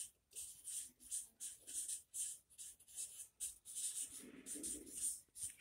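Marker pen writing on a sheet of paper on a wall: a string of short, faint scratching strokes, two or three a second.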